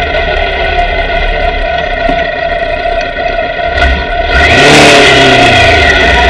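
Sport motorcycle engine running steadily at low revs as the bike slows at a junction, with a couple of single clicks. Then, a little over four seconds in, it gets much louder as the throttle opens and the bike pulls away, the revs rising and then dropping back.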